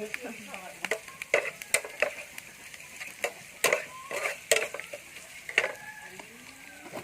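Food sizzling in a pan while a utensil stirs it, with a string of sharp, irregular clinks and scrapes against the pan.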